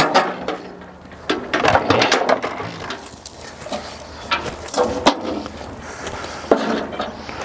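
Folding metal entry steps of a camper clanking and rattling as they are pulled out of the doorway and unfolded, a string of separate clanks and knocks with a sharp knock near the end as they settle.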